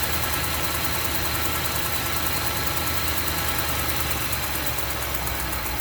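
2008 Range Rover engine idling at its raised cold-start idle, with a rapid, even ticking over the engine sound: the cold-start tick the owner is investigating.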